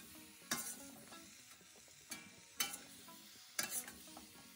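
A metal spatula scrapes and knocks against a stainless steel wok as vegetables are stir-fried, in a few sharp strokes. A faint sizzle runs underneath.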